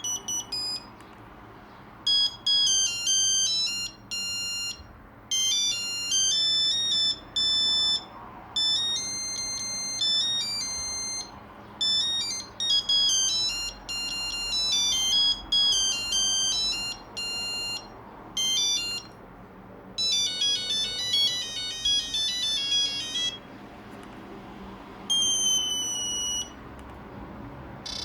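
Nokia 2100 mobile phone playing its ringtone melodies: bright electronic beeping notes, one at a time, in short phrases with brief pauses and a quick run of notes near the middle. Near the end comes a single long held tone.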